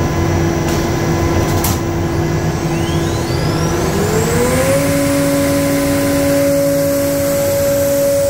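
CNC router spindle running over a steady noisy roar of cutting and dust extraction. A little past halfway its whine glides up in pitch and then holds steady at the higher note.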